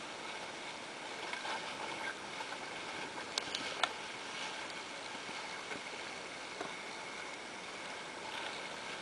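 Steady rush of water and wind around a small sailing dinghy under way. Three short sharp clicks come about three and a half seconds in.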